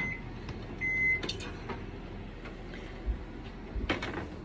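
Microwave oven: a short high beep about a second in, then a click as the door is opened, followed by a few soft knocks. A low steady hum runs underneath.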